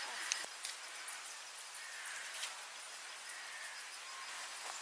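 Faint outdoor ambience: a steady hiss with a few soft bird calls and scattered light clicks.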